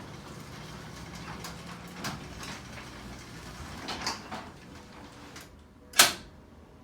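Garage door opener running as it drives the door closed, with a few small clicks, then stopping; a moment later the automatic deadbolt lock shoots home with one sharp, very loud bang.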